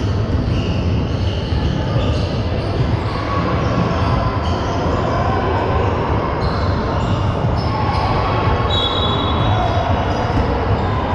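Sounds of an indoor basketball game: steady crowd noise in a large hall, with the ball bouncing on the court.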